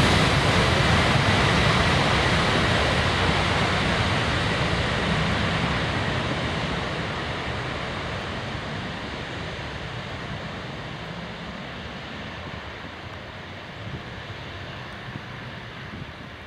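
Jet airliner's engines, a loud, steady rush with a faint whistle that fades away as the aircraft moves off.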